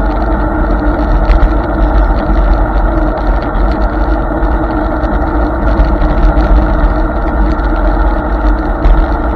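Riding noise from a Hiboy S2 Pro electric scooter on wet pavement: a steady rush of wind and tyre hiss with a deep rumble and a constant faint hum.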